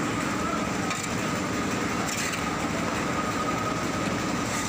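Steady mechanical hum with a constant thin whine, the background din of machinery at a busy wet fish market.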